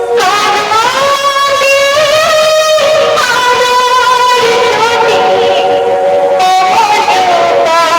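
Loud music played through a large procession sound system during a sound check. A sustained lead melody slides up and down between notes over a dense instrumental backing.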